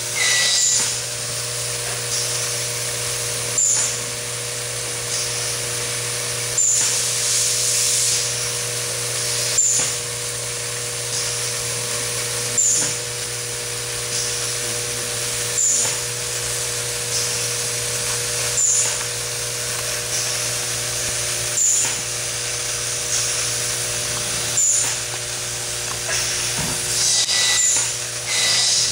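Vibratory bowl feeder with a polycast bowl running: a steady hum under the constant rattle of Torx-head screws moving through the bowl and up its track. About every three seconds there is a sharp click with a short hiss of air as the screw escapement cycles to release a screw.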